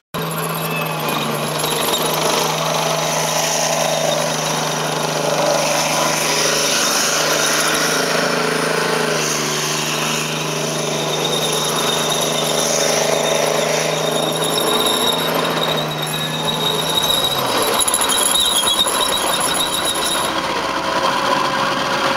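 K2 Black Panther tank driving, its engine running and its tracks clattering and squealing. The engine note falls away about seventeen seconds in.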